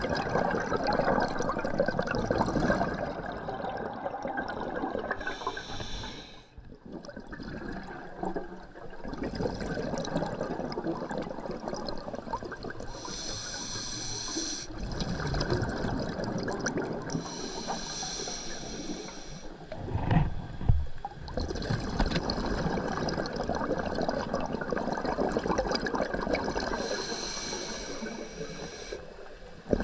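Scuba diver's breathing through a regulator underwater: long rushing, bubbling exhalations broken by four short hissing inhalations. Two dull knocks come about two-thirds of the way through.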